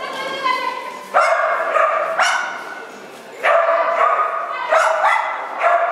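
A dog barking excitedly in high-pitched, drawn-out barks and yelps, a new one about every second or so.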